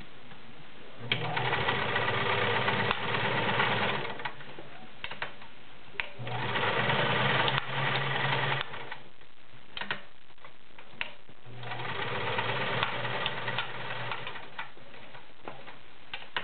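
Kenmore 1341 sewing machine stitching through six layers of denim in three runs of a few seconds each, with a few clicks in the pauses between them.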